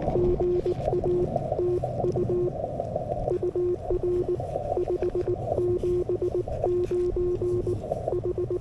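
Morse code (CW) from a Yaesu FTX-1F transceiver on the 40-metre band: a steady low tone keyed on and off in quick dots and dashes, over the receiver's hiss.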